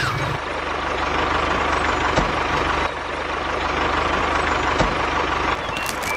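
A vehicle engine running steadily, with a constant low hum under a broad hiss and a few light clicks.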